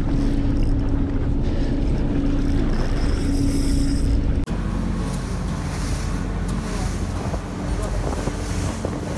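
Fishing boat's engine humming steadily, with wind buffeting the microphone. About four and a half seconds in, the sound cuts to the boat running at speed: engine rumble, wake spray rushing and wind noise.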